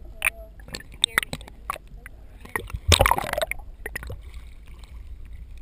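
Sharp clicks and knocks picked up by a camera underwater, then a loud splash and gurgle of water about three seconds in as the camera comes up through the surface, settling into a quieter rush of water and air.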